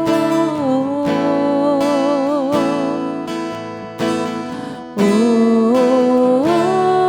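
Slow worship song with strummed acoustic guitar and a long held note that wavers for a moment about two seconds in; the music thins out briefly and a new chord comes in about five seconds in.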